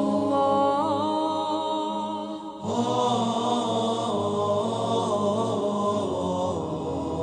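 A voice chanting in long held, wavering notes, with a short break and a new phrase starting about two and a half seconds in.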